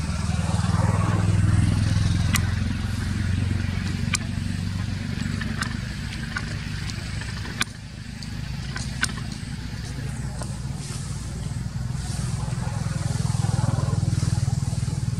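Low steady rumble, as of a motor running, with about half a dozen sharp clicks scattered through the middle.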